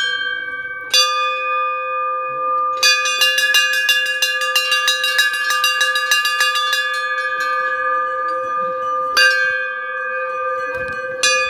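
Large hanging brass temple bell struck with its clapper. Two single strokes come first, then a quick run of strikes for about four seconds. The bell rings on and is struck twice more.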